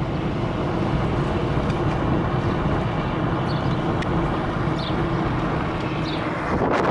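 Car driving on a rough village road, heard from inside: a steady low road and engine rumble. Near the end a louder rush of wind on the microphone comes in.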